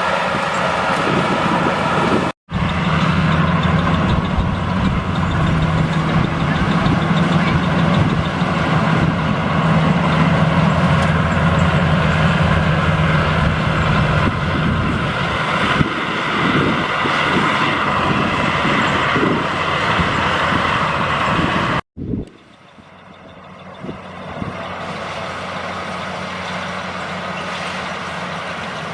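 Maxxi Bimo 102 rice combine harvester running steadily while harvesting, its engine and machinery making a constant drone. The sound drops out twice at cuts, and after the second, about three-quarters of the way through, it carries on quieter.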